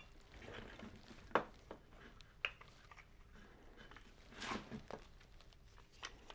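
Light clicks and knocks of small tool parts being handled, scattered a second or so apart, loudest about four and a half seconds in.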